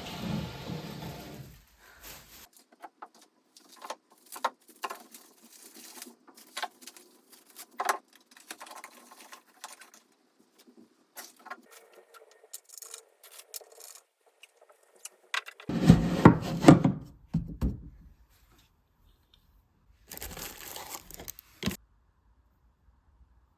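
Scattered small clicks, taps and scrapes of objects being handled, with a louder cluster of knocks and rustling about two-thirds of the way through.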